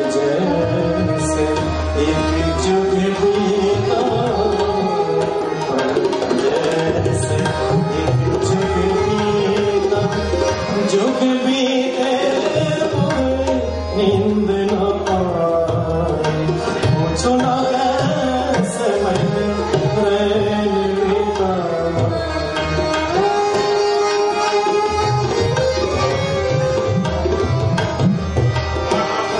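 Tabla and harmonium playing ghazal accompaniment: repeated tabla strokes under a sustained harmonium melody that moves up and down.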